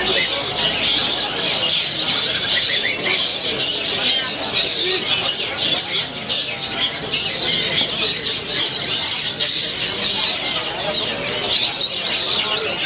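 Many caged long-tailed shrikes (cendet) singing at once in a dense, unbroken chorus of chirps and trills.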